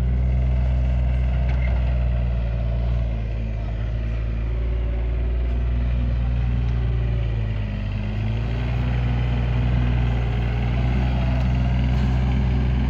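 Mini-excavator's diesel engine running steadily at working speed, its pitch dipping briefly about eight seconds in as it takes a load.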